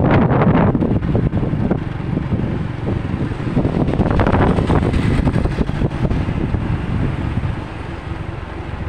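Heavy wind noise on the microphone, swelling in gusts at the start and again about four seconds in, over a low steady rumble.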